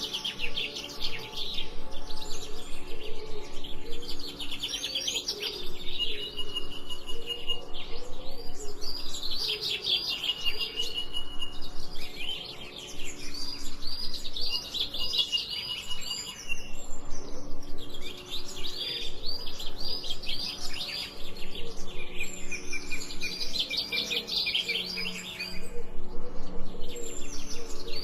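Small songbirds chirping in bursts of rapid high chirps every few seconds, with held whistled notes between the bursts, over a faint low steady hum.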